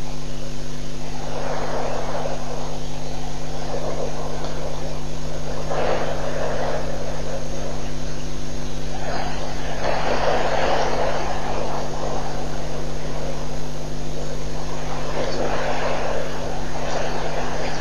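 Steady electrical hum on a waterhole camera's audio feed, with a rushing noise that swells and fades four times.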